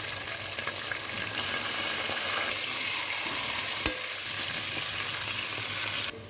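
Chicken sizzling as it fries in a pan: a steady hiss with a single sharp click about four seconds in. The sizzle drops away abruptly just before the end.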